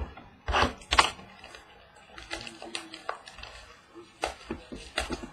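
Hands opening a small cardboard trading card box and handling its contents: a scraping rustle about half a second in, a sharp crack about a second in, then scattered light clicks and taps.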